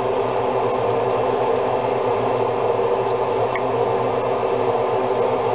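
A steady hum with an even hiss of noise, unchanging and without distinct knocks or clicks.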